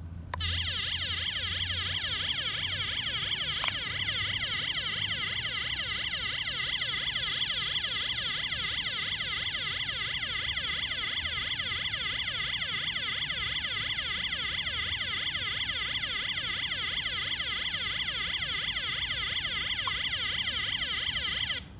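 Car alarm siren sounding, a high-pitched electronic wail that sweeps rapidly up and down over and over, starting and stopping abruptly: the alarm has been triggered. A single click is heard about three and a half seconds in.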